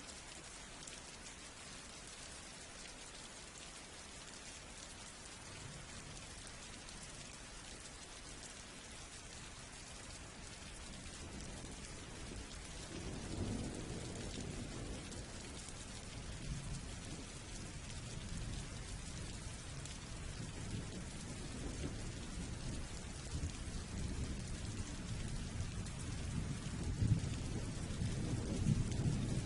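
Steady rain falling, with rolling thunder rumbling in from about ten seconds in and building louder towards the end.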